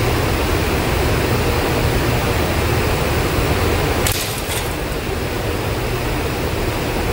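Steady machinery noise in a glass-tempering shop: a low hum under a constant rushing hiss, with a brief cluster of clicks about four seconds in.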